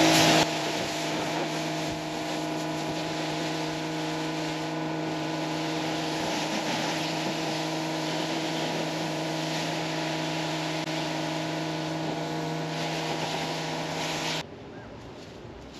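Karcher K5 electric pressure washer running: a steady motor hum under the hiss of the water spray. Both cut off suddenly near the end.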